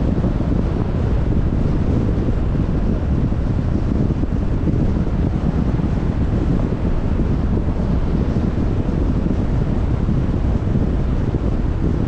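Steady rushing rumble of wind buffeting the microphone, heaviest in the low end.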